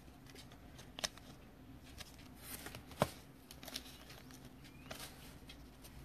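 Faint handling of trading cards and a foil pack wrapper: light rustling with a few sharp clicks, the sharpest about a second in and again about three seconds in, over a low steady hum.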